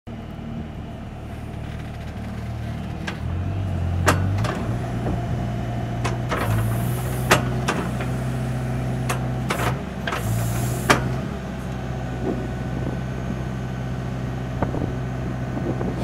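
Skid steer engine running steadily, its pitch shifting slightly under hydraulic load. Several sharp metallic clunks and two brief hisses can be heard over it.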